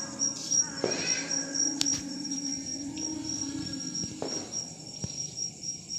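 Crickets trilling in a steady, high, unbroken chirr, with a brief faint voice about a second in and a single sharp click just before two seconds.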